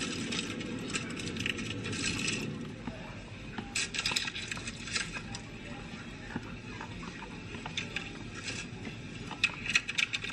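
Hard plastic kitchen containers and a plastic scoop knocking, clicking and scraping against each other in short clusters. The loudest group of clicks comes near the end.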